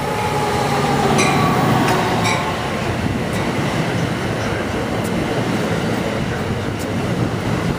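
Passenger train running past on the rails, a steady rumble of wheels and cars with two sharp clicks about one and two seconds in.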